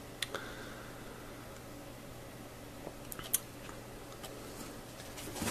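Quiet room tone with a steady low hum, broken by a few faint short clicks, one about a quarter second in and a couple a little past three seconds in.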